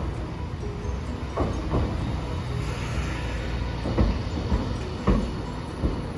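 Hiroden Green Mover LEX low-floor tram pulling in to a street stop. Its running gear makes a steady low rumble, with half a dozen sharp knocks as the wheels cross the rail joints.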